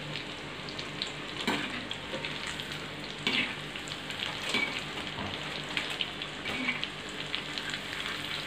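Breaded chicken nuggets deep-frying in hot oil in a metal kadai: a steady sizzle with scattered crackles. A few sharper clicks come as a metal slotted spoon stirs and turns them in the pan.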